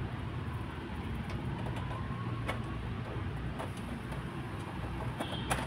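Old toothbrush scrubbing cleaning paste onto a greasy gas-stove burner, with a few light clicks as it knocks against the burner, over a steady low background rumble.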